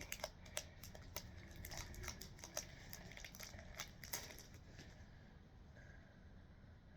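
Foil Pokémon booster pack wrapper crinkling faintly as it is handled and torn open, a scatter of small crackles that die down after about four seconds.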